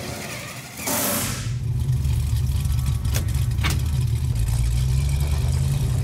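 A short rushing whoosh about a second in, then a car engine rumbling steadily and low, with two sharp clicks a little after the midpoint.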